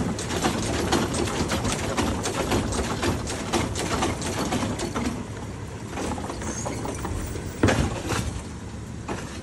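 Automated side-loader garbage truck tipping a cart over its hopper: a rapid clatter of the contents pouring into the hopper over the low hum of the running truck, easing off about halfway. A single sharp clunk near the end as the arm brings the cart down.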